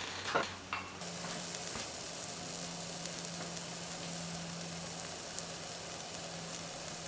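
Banana pancake batter sizzling steadily in hot coconut oil in a frying pan, from about a second in. Just before, a spoon clicks twice against a bowl.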